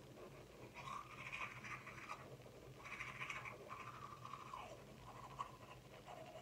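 Manual toothbrush scrubbing teeth: faint, scratchy brushing strokes that come in uneven spells.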